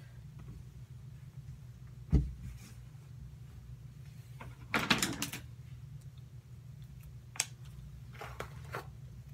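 Handling noises while hair and a cloth hair wrap are worked by hand. A dull bump comes about two seconds in, a burst of rustling near the middle, and a sharp click a couple of seconds later, all over a steady low hum.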